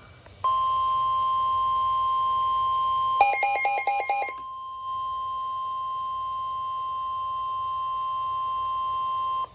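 NOAA Weather Radio's 1050 Hz warning alarm tone: one steady, pure tone, sounding for about nine seconds and cutting off abruptly. It marks a warning-level alert about to be read. About three seconds in, a quick run of about six sharper beeps sounds over the tone for just over a second.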